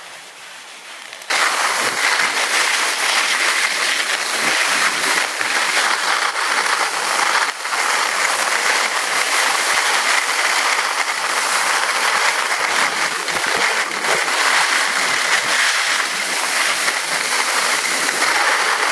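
Loud, steady scraping hiss of skis sliding on hard, icy snow as the skier carrying the camera runs downhill. It starts suddenly about a second in and keeps on, with one brief dip near the middle.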